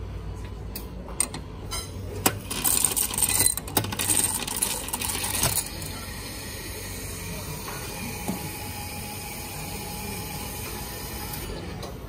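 Drink-bar ice dispenser dropping ice cubes into a cup: a couple of clicks, then about three seconds of rattling clatter that stops abruptly, followed by a steady hiss.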